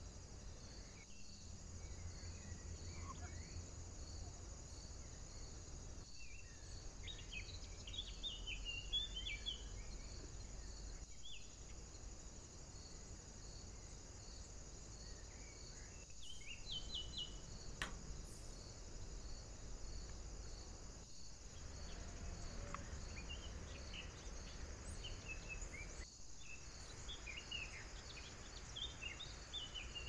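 Faint woodland ambience: a steady high insect chirring with a faint regular pulse, over which small birds give brief high chirps in scattered clusters, busiest around a third of the way in, a little past halfway, and toward the end.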